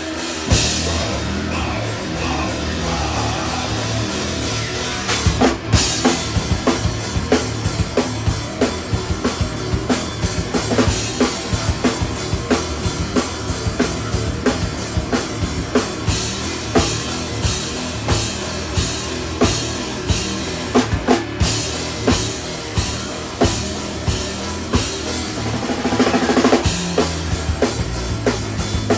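Instrumental rock band playing live, with a full drum kit (kick drum, snare and cymbals) driving a steady beat under guitar. The drums come in with a loud hit just after the start.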